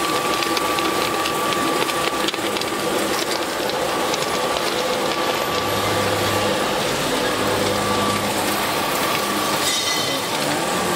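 Cement block-making line machinery running, with the pan mixer and belt conveyor motors giving a steady whine over a continuous mechanical clatter. A low hum comes and goes three times in the second half.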